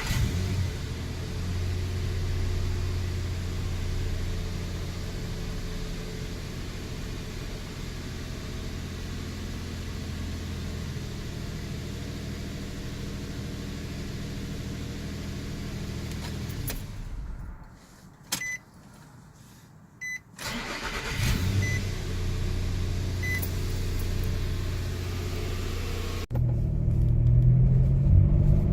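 2007 Nissan Xterra's 4.0-litre V6 idling, switched off about 17 seconds in; a few short chime beeps sound in the pause, and about 20 seconds in the engine is cranked and restarts, idling evenly. This second start is the one where the owner's cold-start noise is gone. Near the end the engine sound jumps abruptly louder.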